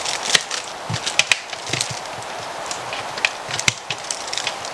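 A plastic slow-cooker liner crinkling and crackling as it is pressed around the rim of a Crock-Pot and the glass lid is set on. Irregular small clicks and a few soft knocks run through it.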